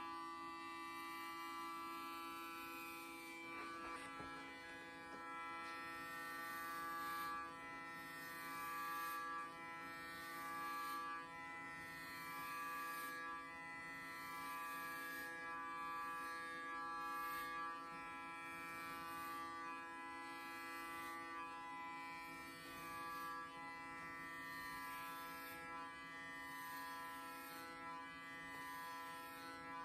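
Background instrumental music: a melody of notes changing about once a second over steady held drone tones. Electric hair clippers buzz faintly underneath.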